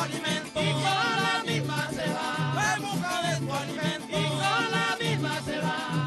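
Live golpe larense music: voices singing over strummed small guitars (cuatro and cinco larense), with a drum and maracas keeping a steady rhythm.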